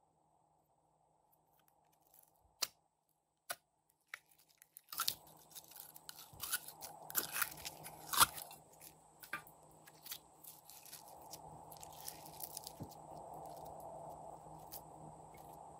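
Glossy pink slime being squeezed and pulled out of a clear plastic cup by hand, making dense sticky crackles and clicks. A few sharp single clicks of the plastic cup come first.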